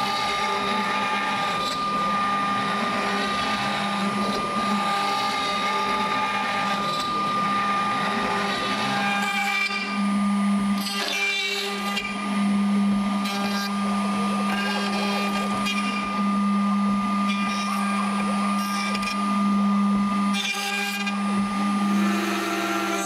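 ShopBot desktop CNC router's spindle running with a steady whine as its bit carves a cherry panel, first in a finish pass with a 1/16" ballnose bit, then in a cutout pass with a 1/4" bit. The cutting sound changes about ten seconds in.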